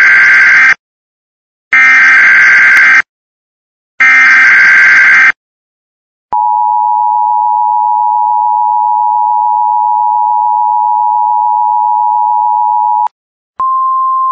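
Emergency alert broadcast tones, as heard on NOAA Weather Radio. The screeching data header plays three times in short bursts, then the steady two-tone attention signal holds for about seven seconds. Near the end a single, slightly higher steady alert tone begins.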